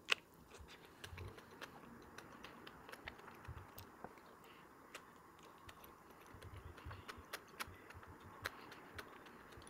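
Faint, scattered light clicks and taps from food and kitchen items being handled, over a faint steady hiss, with a sharper click right at the start.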